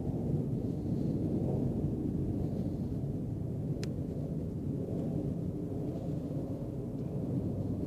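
Wind buffeting the phone's microphone: a steady low rumble, with a single sharp click about four seconds in.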